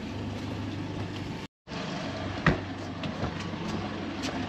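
Honda outboard engine idling with a steady low hum while the boat holds position, with one sharp knock about two and a half seconds in.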